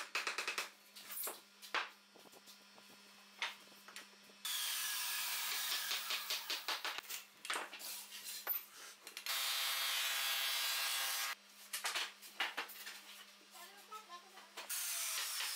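Hammer knocks on a wooden mortise-and-tenon joint, a string of sharp taps, then long stretches of steady rasping noise of wood rubbing on wood, broken by more knocks. A pitched drone lasts about two seconds about two-thirds of the way through.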